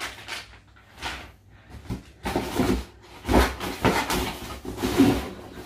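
Unboxing handling noise: a plastic parts packet and a cardboard box being handled and rummaged through, in irregular bursts of rustling with a few knocks.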